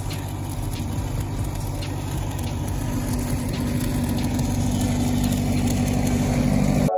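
Stick welding the cap pass on pipe with 8010 cellulose rod: a continuous arc crackle over the steady hum of an engine-driven welder working under load, growing slightly louder. It cuts off suddenly near the end.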